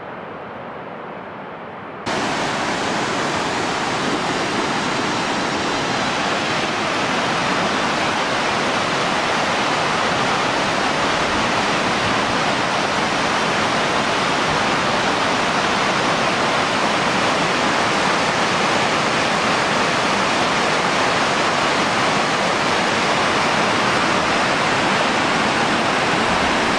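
Colorado River rushing through a riffle: a loud, steady rush of water that comes in abruptly about two seconds in, after a quieter steady hiss.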